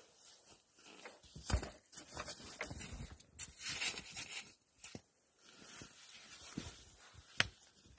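Flat stones being set in place by hand to build a fireplace: irregular knocks and scrapes of rock on rock and gravel, with a sharp knock near the end.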